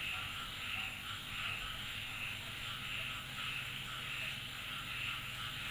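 Steady rhythmic animal calling at about two pulses a second, like a night-time chorus, over a low steady hum.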